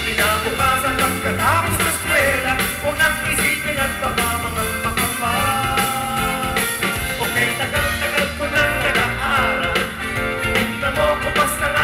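Live band music with male vocalists singing into microphones.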